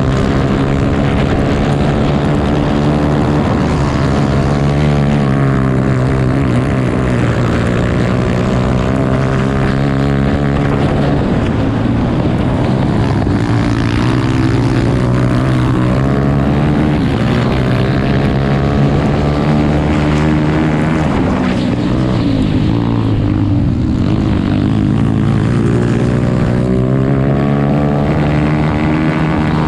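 Grass racing kart's engine heard from on board at racing speed, its note rising and falling over and over as the throttle is opened and eased through the bends.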